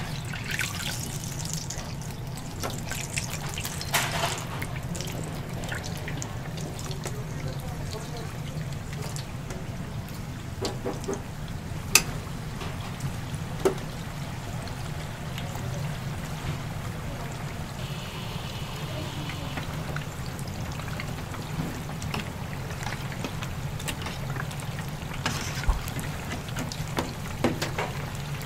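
Raw chicken pieces being mixed by hand in wet vegetable batter, with scattered light clicks and knocks over a steady low hum.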